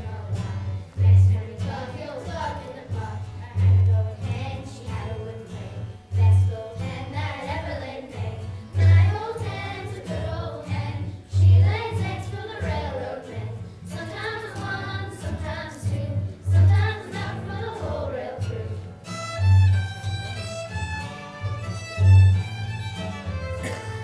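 Young bluegrass string band of fiddles, acoustic guitars, mandolin and upright bass playing an old-time fiddle tune, with deep booming bass notes about every two and a half seconds. The fiddles come through more clearly near the end.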